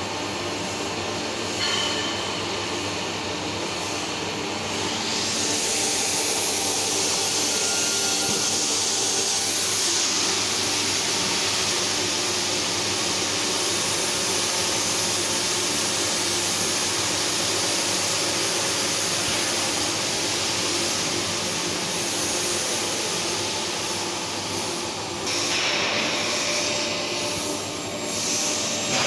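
Automated welding gantry at work: a loud, steady hiss sets in about five seconds in and eases off near the end, over a steady low machine hum.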